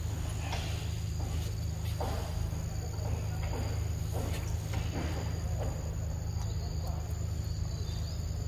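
Steady high-pitched insect chirring from the forest, over a constant low hum. Soft rustles recur roughly every half second to a second.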